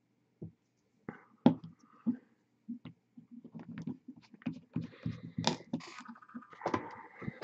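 Irregular clicks, taps and rustles of hands handling small objects close to the microphone, growing denser about three seconds in, with a squeaky tone near the end.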